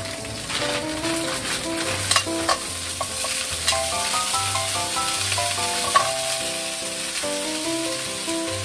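Broccoli stir-frying in oil in a stainless steel frying pan: a steady sizzle, with chopsticks clicking against the pan, the sharpest clicks about two and six seconds in. Background music with a plodding bass line plays underneath.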